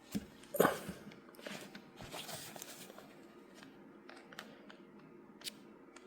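Faint handling noise from a 1:6 scale action figure being posed: soft rustling of its cloth clothing and a few small clicks from its plastic joints as the arms are moved.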